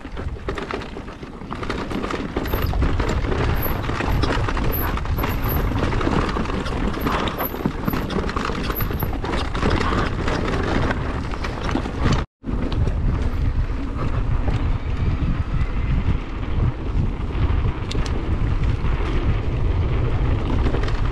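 Wind buffeting the microphone of a camera on a mountain bike moving fast down a dirt trail, over tyre noise and a steady run of short knocks and rattles from the bike. The sound drops out for an instant about twelve seconds in.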